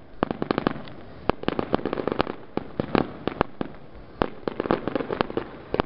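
Fireworks finale barrage: aerial shells bursting in rapid succession, with sharp bangs coming irregularly several times a second.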